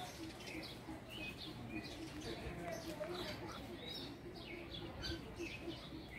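Aviary birds calling: many short high chirps and tweets overlapping several times a second, with softer low calls repeating beneath.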